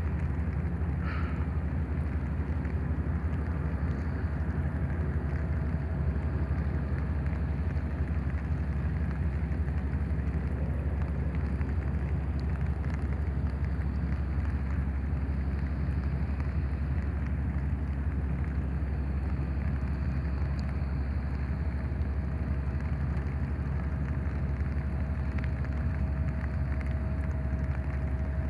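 Steady rain falling, with a low, steady engine drone underneath from a tugboat out on the river towing a log boom.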